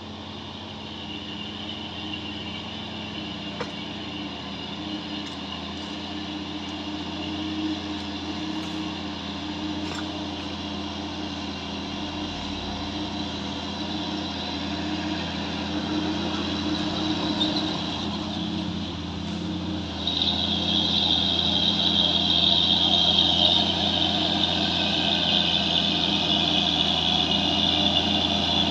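Heavy diesel truck engine running under load, growing steadily louder as the truck approaches. About twenty seconds in, a loud high whine joins the engine note.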